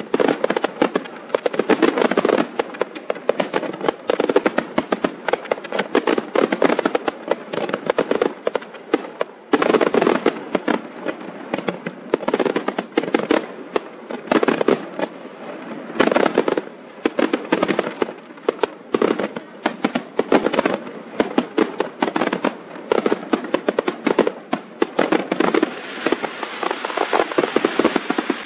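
Fireworks display: a dense, continuous barrage of bangs and crackling from rising rockets and bursting shells. Fresh surges come about a third of the way in and again just past halfway.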